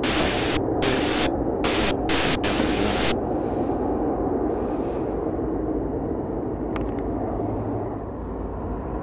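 Steady rumble of a Boeing 777-300 rolling out down the runway after touchdown, slowly fading as the jet slows. For the first three seconds, bursts of radio static hiss switch on and off over it.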